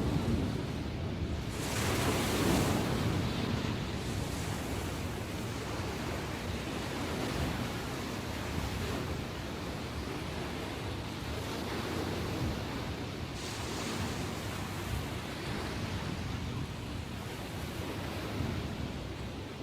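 Ocean surf washing in continuously, with a larger wave breaking about two seconds in and another swell of surf later on; wind on the microphone adds a low rumble.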